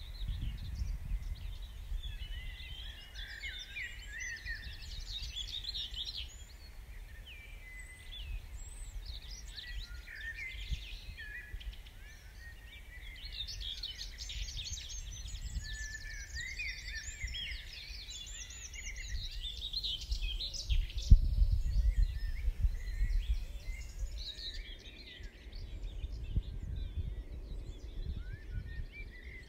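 Dawn chorus: many songbirds sing and call over one another throughout. An irregular low rumble of wind on the microphone runs beneath them and is strongest about two-thirds of the way through.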